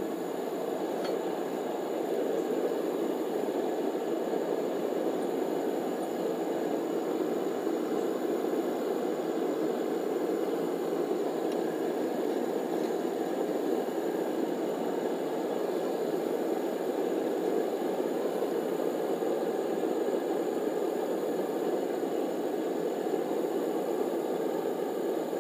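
Blacksmith's forge running steadily, a constant even rushing noise, while the cable billet heats in it to forge-welding heat.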